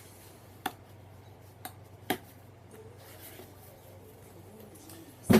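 A few light clicks and taps from handling the box and its contents over a faint low hum, with one louder sharp knock near the end.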